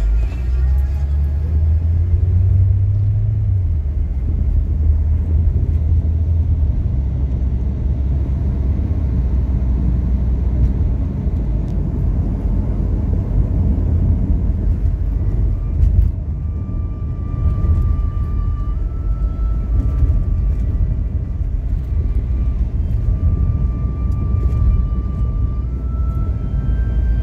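Steady low rumble of a car's engine and tyres heard from inside the cabin while driving. A faint melody of held notes comes in over it in the second half.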